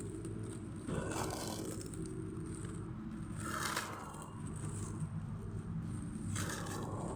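Packaging being handled during an unboxing, with three short scraping strokes over a steady low hum.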